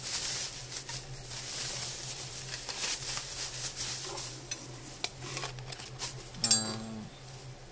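Plastic bubble wrap crinkling and crackling as it is pulled off stand-mixer attachments, with light clinks of the steel whisk and beaters being handled.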